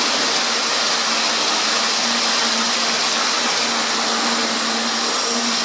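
Hornby OO gauge Class 91 model locomotive running at full speed around the track, its motor and wheels making a steady whirring noise as it hauls a heavy train of nine Mark 4 coaches and a DVT.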